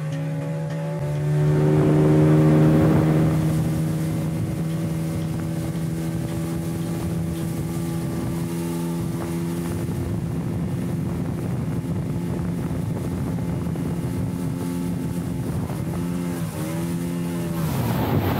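Speedboat engine running at a steady pitch under a loud rush of water and wind. Its note wavers briefly and picks up again near the end, then drops away.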